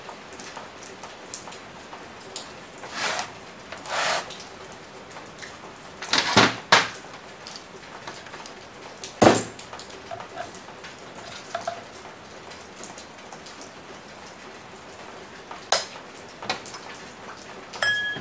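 Metal parts of a small electric water pump knocking and clinking on a workbench as the motor is handled and turned around during reassembly. There are several sharp knocks spread through, the loudest about nine seconds in, over a steady hiss.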